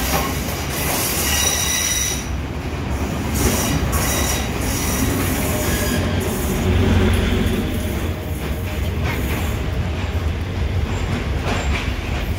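Passenger train running on the rails with a Class S11 DMU passing close alongside in the opposite direction: a steady low rumble with high wheel squeal in the first two seconds, then rumble and scattered clicks of wheels over the rails as the train slows for the station.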